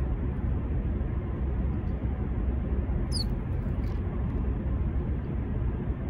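Steady low outdoor rumble. About three seconds in, a small bird gives one brief high chirp that falls in pitch.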